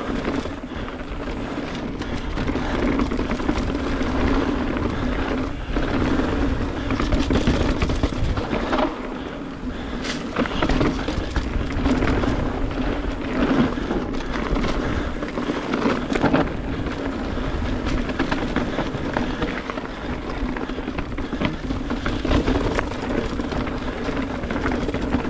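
Mountain bike ridden fast down a rocky trail: tyres rolling over rock with many sharp knocks and rattles from rock strikes and the bike's chain and frame, over steady wind noise on the microphone.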